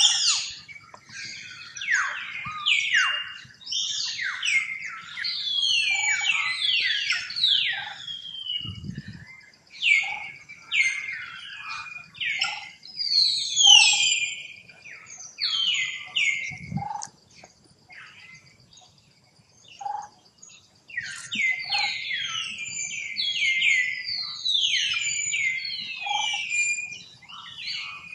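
Young long-tailed macaque screaming in distress while a bigger monkey grabs it: rapid runs of shrill cries, each sliding down in pitch, broken by a short pause about a third of the way in and a longer one just past the middle.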